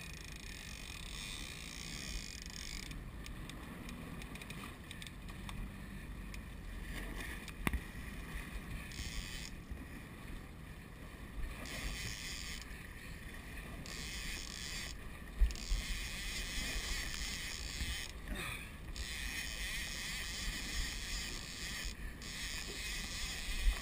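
Steady wind and water noise aboard a fishing boat at sea, with a few sharp knocks, the loudest about two-thirds of the way through.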